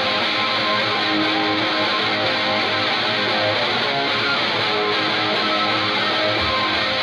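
Live rock band playing the instrumental opening of a song, led by strummed, distorted electric guitar.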